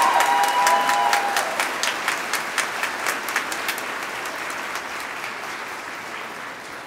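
Audience applauding, with a few cheers in the first second or so; the clapping slowly dies away.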